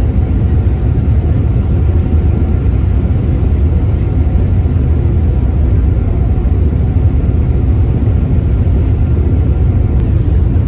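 Passenger ferry running across open water, heard from on board as a loud, steady low rumble of its engine with no break or change.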